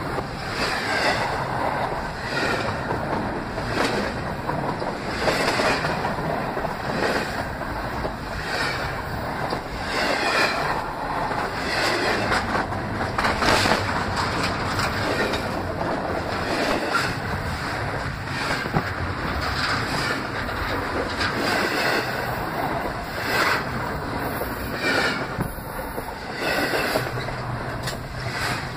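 Canadian Pacific train cars rolling directly over a camera set between the rails: a loud, steady rumble and rattle of wheels and undercarriage overhead, with a clack about every second and a half as the wheel sets pass.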